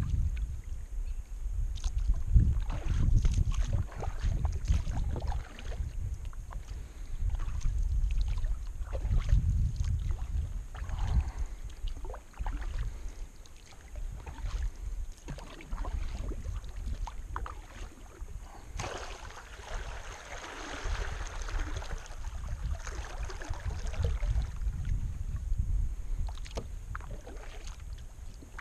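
Kayak paddle strokes dipping and splashing in calm river water, with drips off the blade, over a low rumble of wind on the microphone.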